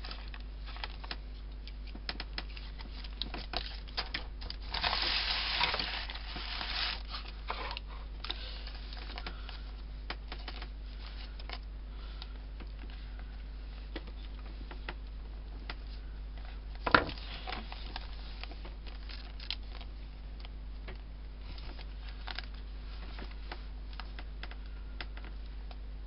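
Hands handling a paper art journal and thread: scattered light taps and rustles, with a longer rustle about five seconds in and a single sharp click a little past the middle, over a steady low hum.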